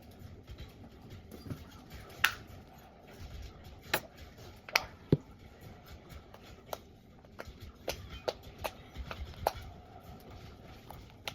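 Stiff homemade glue slime being kneaded and squeezed by hand, giving irregular sharp clicks and pops over soft handling noise; the slime is still tough, with lotion being worked in to soften it.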